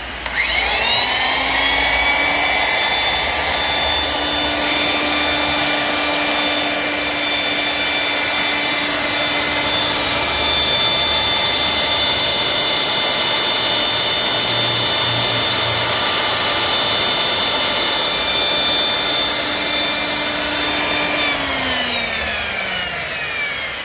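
Electric motor of a large 100 V power tool, rated about 20 A and roughly 1800 W, test-run: it spins up to a steady high whine just after the start and runs for about twenty seconds. It is then switched off and winds down, its pitch falling, near the end.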